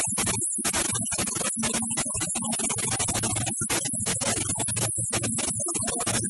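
Electronic background music with a fast, chopped beat.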